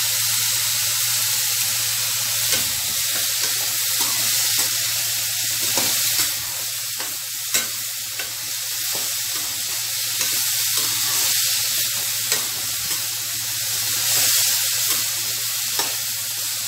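Cauliflower sautéing in a metal kadai over a gas flame: a steady sizzle, with a metal spatula scraping through the florets and a few sharp taps against the pan as they are stirred.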